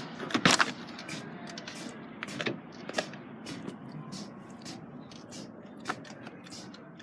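A few sharp knocks and clicks over a steady low rumble, the loudest about half a second in.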